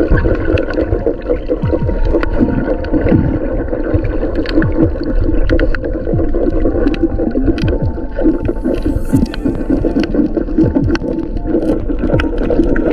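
Underwater sound of divers working a fishing net over a coral reef: a muffled water rumble with gurgling bubbles and scattered sharp clicks.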